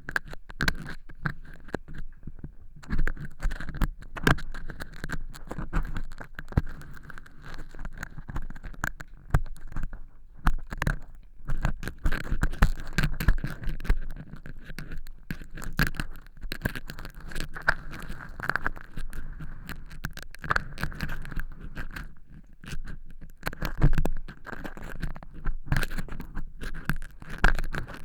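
Ear pick scraping and crackling through dry cork-chip fake earwax inside a silicone ear model: a dense, irregular run of crunchy scratches and clicks, with a couple of short pauses.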